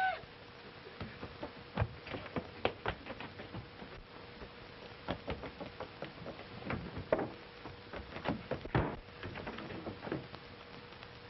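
A series of irregular knocks, thumps and clicks, some in quick clusters, over a faint steady hum and hiss.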